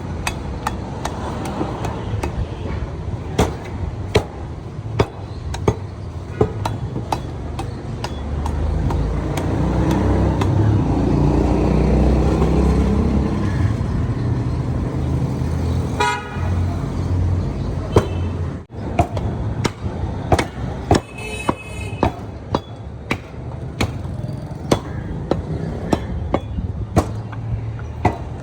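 Butcher's cleaver chopping beef, with sharp, irregular strikes throughout. Street traffic runs behind it: a vehicle passes loudly in the middle, and short horn toots sound about 16 and 21 seconds in.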